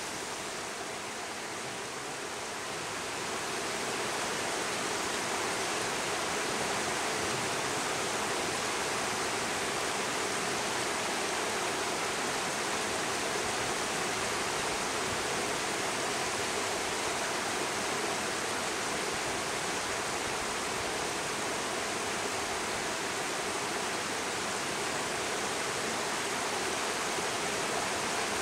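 Shallow mountain river running over rocks and stones: a steady rush of water that grows a little louder about three seconds in.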